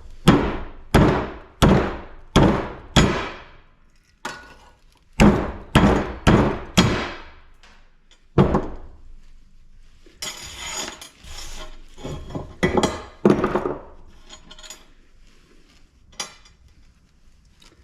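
Hammer blows on a stubborn plastic housing of a scrap light fixture that won't break: sharp, ringing strikes in quick runs of several, with a stretch of rattling and scraping about ten seconds in and a few last blows near the end.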